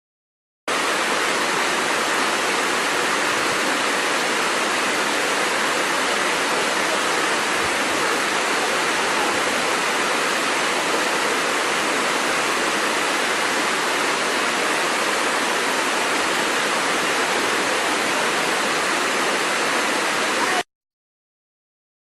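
Waterfall: water falling and splashing in a steady, even rush that starts suddenly about a second in and cuts off suddenly near the end.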